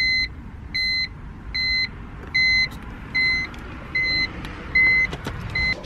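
A 2001 BMW 330Ci's electronic warning chime beeping steadily, about eight even beeps a little under a second apart, over a low background rumble.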